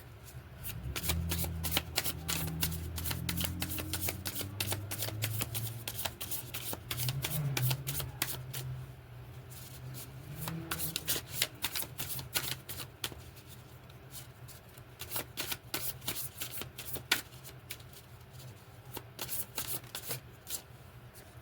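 A tarot deck being shuffled by hand: a long run of rapid card flicks and clicks that pause briefly and restart. A low hum sits underneath for roughly the first half.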